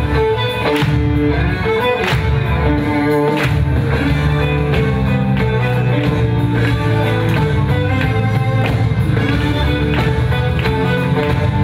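Country line-dance music with a steady beat.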